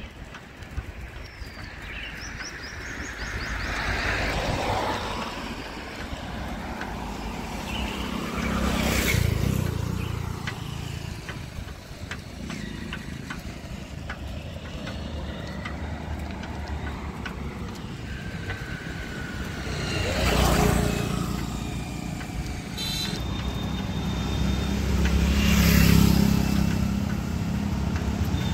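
Road traffic: a steady low engine rumble with motor vehicles swelling past four times, and a few bird chirps in the first seconds.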